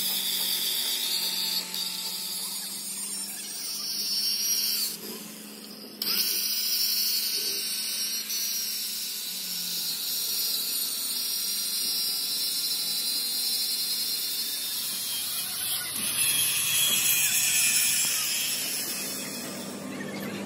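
Workshop power tool running with a high, steady whine that drops away for about a second around five seconds in, then resumes.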